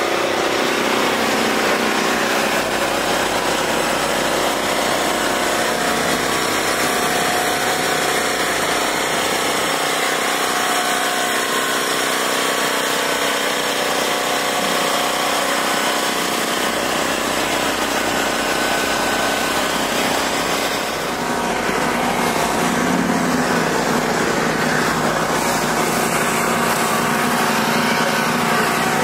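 A small engine running steadily, a continuous mechanical drone with a brief dip about two-thirds of the way through.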